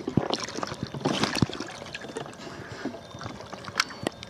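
Water splashing and sloshing around a plastic sit-on-top kayak as a grey seal hauls itself onto the bow. Irregular knocks and scrapes against the hull come through, busiest about a second in.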